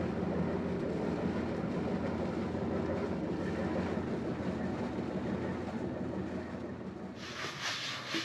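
Engine of a tow boat running steadily with a low rumble as it brings a towed sailboat alongside. About seven seconds in, the rumble stops and a frying pan sizzles on a galley stove.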